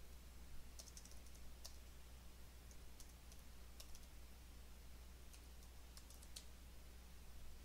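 Faint computer keyboard typing: scattered, irregular keystroke clicks over a low steady hum.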